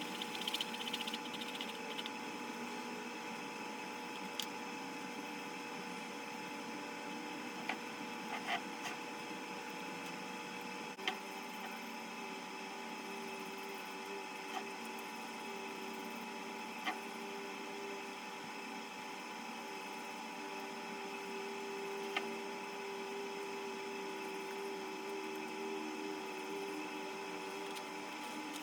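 Steady machine hum holding a few level tones, its pitch shifting slightly about eleven seconds in, with half a dozen isolated light clicks and taps.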